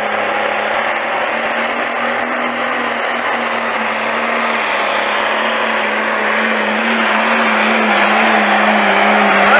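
Modified pulling tractor's engine running at full throttle under heavy load as it drags a weight-transfer sled, black smoke pouring from its stack. A loud, steady drone that holds one pitch.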